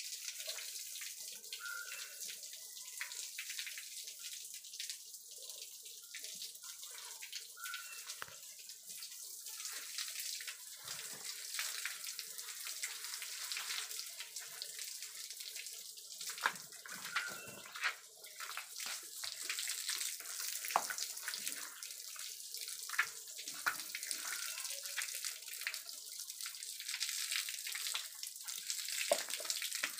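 Water spraying from a garden hose onto a calf's wet hide and splashing onto the wet floor: a steady hiss with many small splashes and drips.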